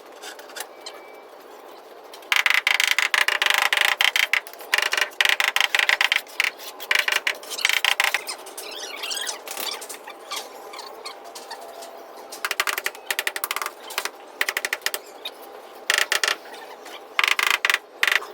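A tool at work in bursts of fast rattling strokes, about six bursts of one to two seconds each.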